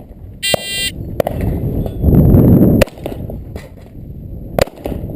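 Shot timer's electronic start beep, short and high-pitched, about half a second in. Then a few single sharp cracks, and a loud rushing noise on the microphone from about two seconds in to nearly three.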